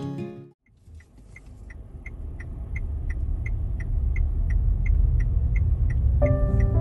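A low rumble builds up in level, with an even high ticking about three times a second running over it. Music comes back in near the end.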